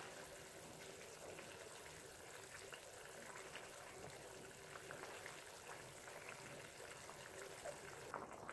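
Faint bubbling of mutton curry boiling in a kadai, with light scattered ticks and scrapes of a wooden spatula stirring it.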